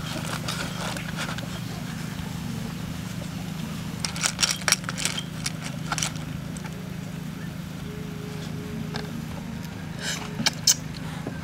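Cooked snail shells clicking against one another, with foil crinkling, as snails are picked out of a foil packet by hand: a cluster of sharp clicks about four seconds in and another near the end, over a steady low hum.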